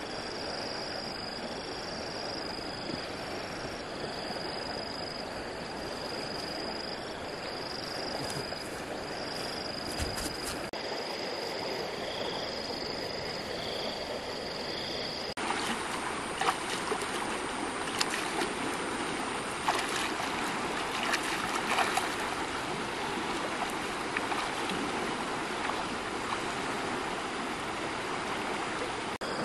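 Steady rush of flowing river water. High chirping notes repeat over the first half, and a few sharp clicks come in the second half; the sound changes suddenly about halfway.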